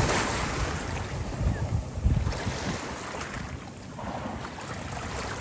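Small sea waves washing against shoreline rocks, with wind rumbling on the microphone and a stronger gust about two seconds in.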